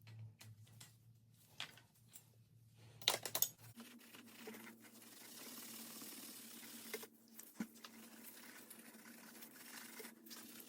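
Faint, sparse clicks and light taps of parts being handled, the strongest about three seconds in, over a faint steady hum that sets in about four seconds in.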